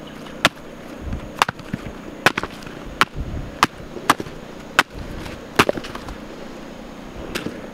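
Apples being chopped in half with a serrated blade against dirt ground: a series of about nine sharp chops, irregularly spaced, roughly one a second, with a longer gap near the end.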